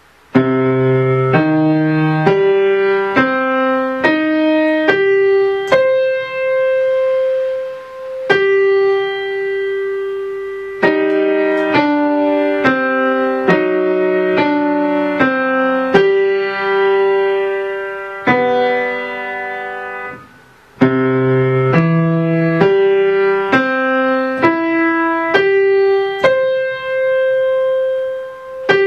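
Piano playing a simple beginner piece: an even melody over chords, with a few long held notes. It breaks off for a moment about twenty seconds in, then the opening phrase starts again.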